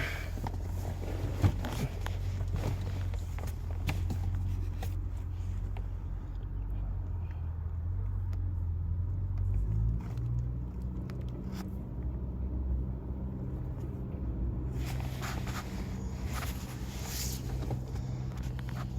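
A vehicle engine running at a steady idle, a low hum whose pitch shifts slightly about halfway through. A stretch of rustling noise comes near the end.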